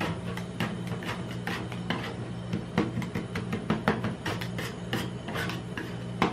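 Two metal spatulas chopping and scraping ice-cream mix on a frozen steel cold plate. Quick, irregular clicking taps and rasping scrapes run over a low steady hum.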